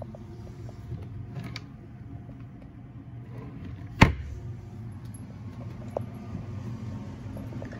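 A wooden storage drawer shutting with one sharp knock about four seconds in, with a few fainter clicks around it, over a steady low hum.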